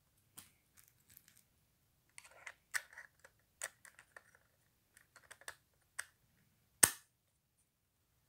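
Small plastic clicks and rattles as a Canon front lens cap is handled and clipped onto a Canon EF 50mm f/1.8 STM lens: a scatter of light irregular clicks, then one loud sharp click about seven seconds in.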